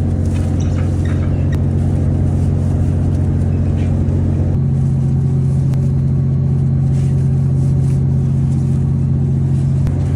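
A fishing boat's engine and deck hydraulics running steadily with a low drone. The pitch shifts slightly about four and a half seconds in.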